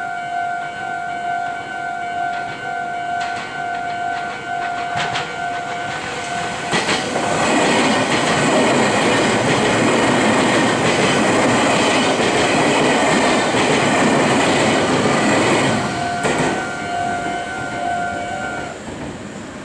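Japanese level-crossing alarm sounding its repeating two-tone electronic ding. About seven seconds in, a Meitetsu electric train passes over the crossing for about nine seconds, its wheel and rail noise drowning the alarm. The alarm comes back once the train has gone, then stops shortly before the end.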